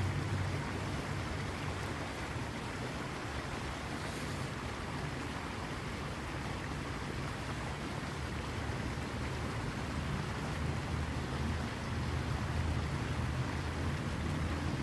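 Steady rushing water of a waterfall, an even noise with a low rumble underneath.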